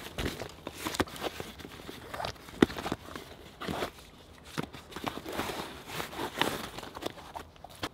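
A canvas rucksack being unpacked by hand: rustling fabric with irregular clicks and knocks from buckles and gear being handled, the sharpest knock about two and a half seconds in.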